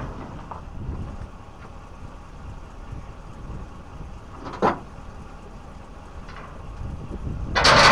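Low wind rumble on the microphone, a single sharp knock a little past halfway, and a loud rushing noise starting near the end.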